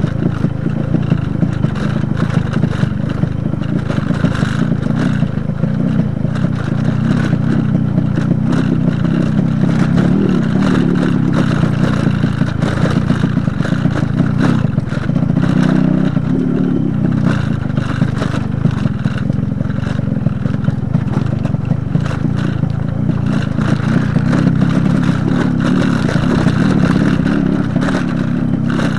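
Yamaha RX100's two-stroke single-cylinder engine running under load on a rough, stony dirt track, the revs rising briefly about a third of the way in and again just past halfway, with clatter from the bike over the stones.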